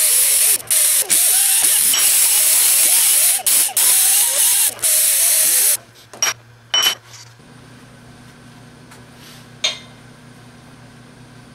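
Compressed-air blow gun blasting air over a steel flat bar: a loud hiss lasting about six seconds with a few brief breaks, then two short puffs.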